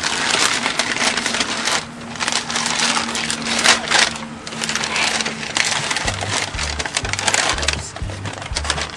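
Crinkling and rustling of a printed wrapping sheet as it is folded around a rack of barbecue ribs. A background music bass line comes in about two-thirds of the way through.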